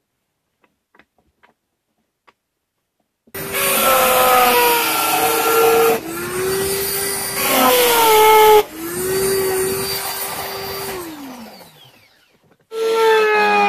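Electric drill motor in a drill press whining as the bit bores into plywood, its pitch sagging under load. It winds down around eleven seconds in and starts up again near the end, after about three seconds of near silence at the start.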